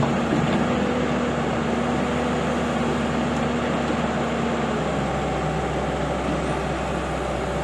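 Heavy diesel machinery engine running steadily, its note shifting about five seconds in.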